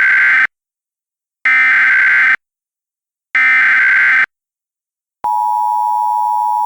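Emergency Alert System SAME header data bursts: screechy warbling data tones, each just under a second long and about two seconds apart. About five seconds in, the steady two-tone EAS attention signal starts and holds.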